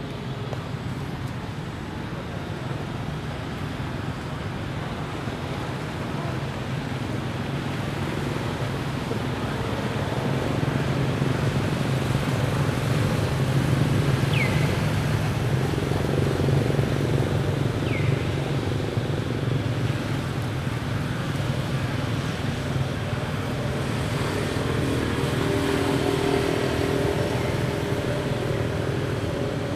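Motor vehicle engines on a road, a low hum that swells around the middle and again near the end as traffic passes. Two short high chirps falling in pitch come about halfway through.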